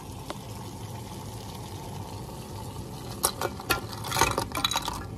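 A pot of water boiling steadily; about three seconds in, frozen broccoli florets are tipped from a measuring cup into it, with a quick run of splashes and knocks.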